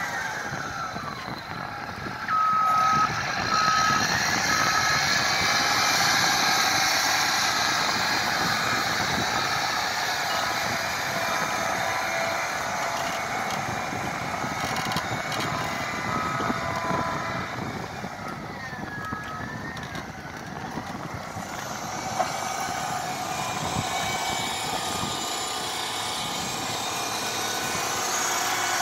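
Caterpillar 120M motor grader's diesel engine running as the machine manoeuvres, with its reverse alarm sounding a steady series of short, evenly spaced beeps from about two seconds in until a little past halfway.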